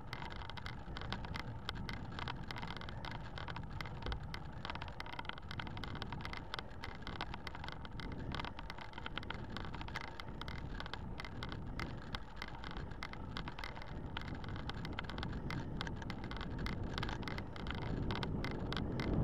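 Riding noise of a road bike on asphalt: a steady rush of wind and tyre noise with many small irregular rattles, growing louder near the end.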